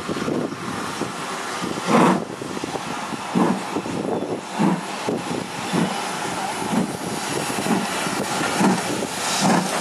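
Steam locomotive 42968 chuffing slowly as it moves off, its exhaust beats about one a second and quickening slightly, the strongest about two seconds in, over a steady hiss.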